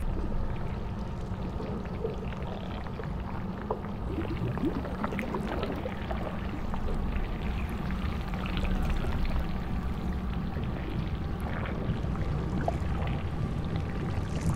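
Ambient sound-design bed of an animation soundtrack: a steady low rumble with scattered watery, bubbling clicks and small pitch glides over it.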